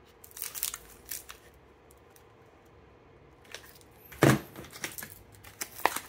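Vacuum-sealed steak packages handled in a cardboard box: rustling and crinkling of the plastic and scattered clicks. About four seconds in comes a heavy thump, the loudest sound, as a package is set down in the box.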